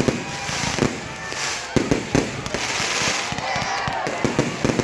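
Fireworks going off in quick succession: many sharp bangs with stretches of crackling hiss between them, and people's voices underneath.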